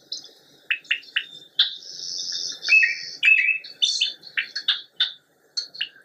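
Birds calling: a string of short, high chirps with gaps between them, and a couple of longer held notes about two seconds in.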